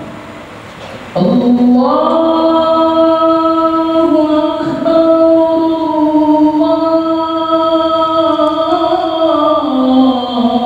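The adhan, the Islamic call to prayer, chanted by a muezzin. About a second in, after a brief breath pause, he starts one long drawn-out phrase of held notes that steps down in pitch near the end.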